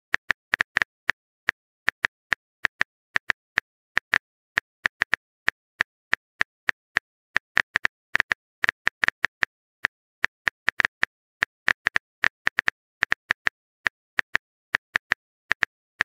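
Smartphone keyboard typing sound effect: a run of short, identical taps at an uneven pace of about three a second, with dead silence between them.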